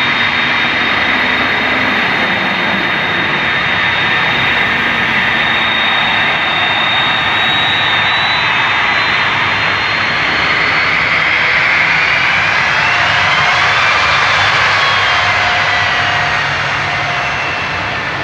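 Airbus Beluga A300-600ST's turbofan jet engines running: a loud steady rush with a high whine over it. The sound swells to its loudest about two-thirds of the way through, the whine rising and then falling in pitch, and eases off near the end.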